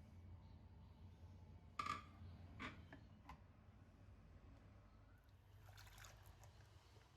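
Near silence with a low hum, broken by a few faint clicks or knocks about two to three seconds in and a short soft rustle near six seconds.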